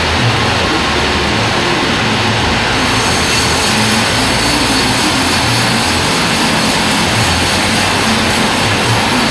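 Band sawmill running loud and steady; a brighter, higher hiss joins about three seconds in and holds.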